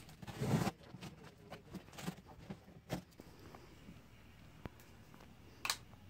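Knife cutting through the packing tape on a cardboard box, with short scraping and ripping sounds; the longest, loudest rip comes about half a second in, followed by scattered short scratches and taps of cardboard.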